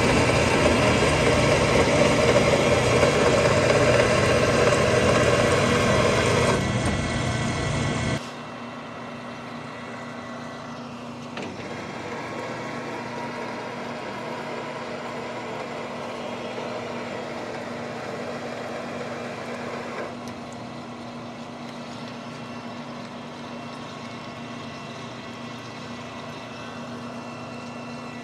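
Metal lathe single-point cutting an Acme thread on a steel lead screw, with flood coolant pouring over the cut: loud and steady for about eight seconds, then dropping abruptly to the quieter steady hum of the lathe running.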